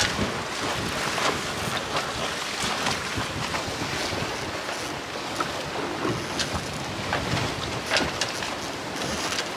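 Sailing yacht under sail in a fresh breeze: wind buffeting the microphone over the rush of water along the hull, with short sharp splashes now and then.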